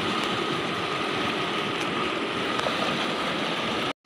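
Steady rushing of fast-flowing, swollen muddy water close by.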